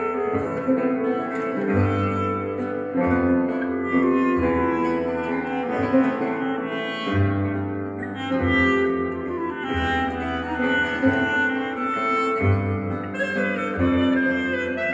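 Acoustic instrumental music with no voice: sustained melody notes over a bass line that moves to a new note about every second.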